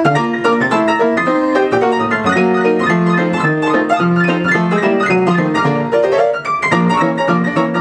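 A player piano playing a paper song roll: an upbeat tune in full chords over a steady bass line, with no pauses.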